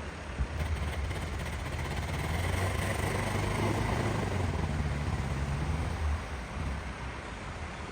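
A motor vehicle's engine and road noise, building up over the first couple of seconds and easing off after about six seconds.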